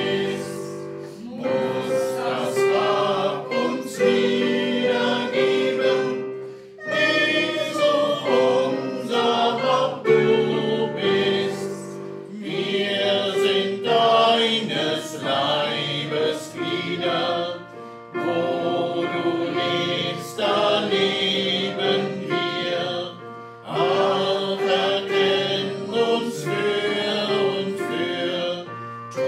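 A hymn played on an electronic keyboard, with voices singing along, in phrases with short breaths between them.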